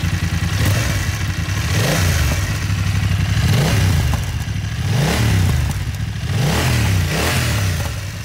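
BMW F900R's 895 cc parallel-twin engine heard through its stock exhaust silencer, revved from idle in a series of short throttle blips, the pitch rising and falling with each one.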